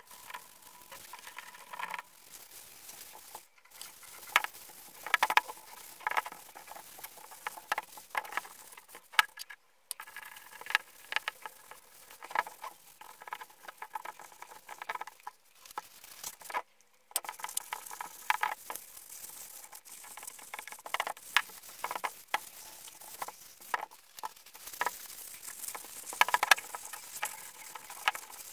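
A rag rubbing and scraping over the metal parts of an antique meat grinder, with many small clicks and knocks as the grinder plate and body are handled and wiped. It stops briefly two or three times.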